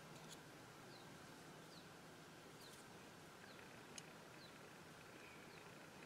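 Near silence: a faint outdoor background with a short high chirp repeating about once a second, and a few soft ticks.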